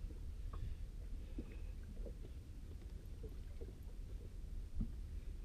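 Steady low rumble of wind and sea around a small open boat, with scattered small knocks and clicks and one louder knock near the end.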